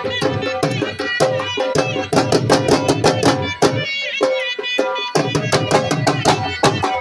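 Two dhol drums beaten with sticks in a fast dance rhythm, under a wind instrument playing a held, bending melody: live folk dance music.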